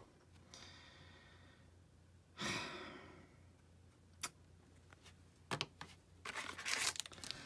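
A man sighs about two and a half seconds in, in dismay over a smeared autograph card. A few light clicks follow, then rustling near the end as a foil card pack is taken from the box.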